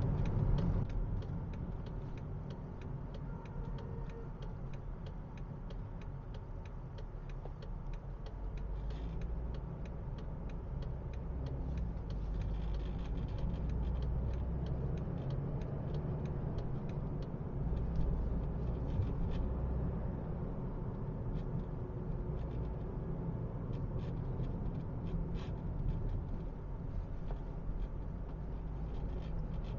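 Steady low rumble of road and engine noise inside a moving car's cabin, swelling and easing slightly with speed.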